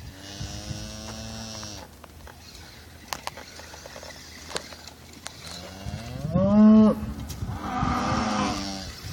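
Cattle mooing: three long calls, the loudest about six and a half seconds in, rising and then falling in pitch.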